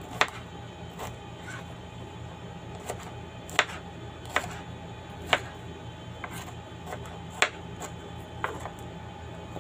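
Kitchen knife chopping a vegetable on a plastic cutting board: sharp, irregular knocks about a second apart, some louder than others.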